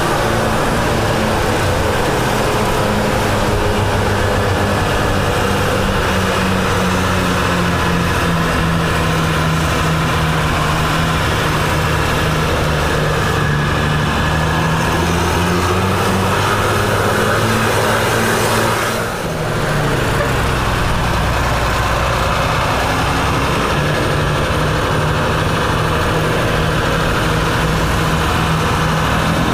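Tour bus's diesel engine running steadily under load as the bus pulls up a climb, heard from just behind it. The sound dips briefly about two-thirds of the way through, then carries on at a steady, slightly lower pitch.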